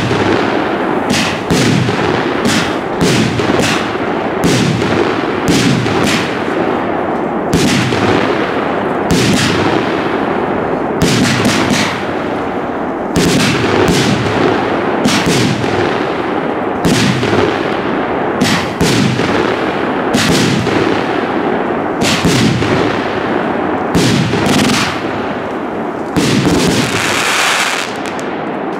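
Klasek Barracuda 45 mm calibre, 36-shot F3 firework cake firing: a rapid, irregular run of shots and aerial shell bursts, roughly one to two a second. Near the end the bursts give way to a denser, steadier rush of noise.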